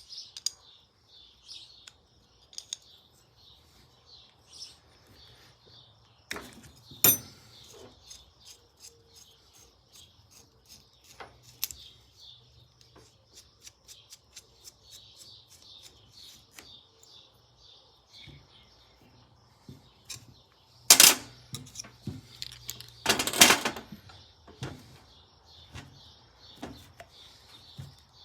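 Small motorcycle throttle parts being handled and cleaned on a bench: scattered clicks and taps, a run of light ticks, and two short loud bursts of hiss near the end. Birds chirp steadily in the background.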